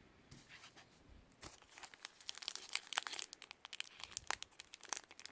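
Foil wrapper of a baseball card pack being torn open and crinkled by hand, a run of dense crackles that gets busier after the first second or so.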